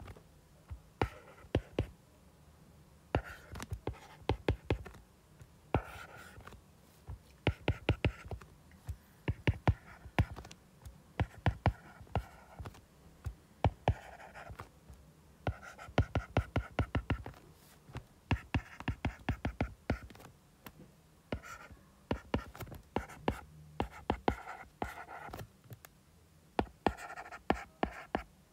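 Stylus tapping and scratching on a tablet's glass screen as equations are handwritten: clusters of sharp clicks with brief pauses between groups of strokes.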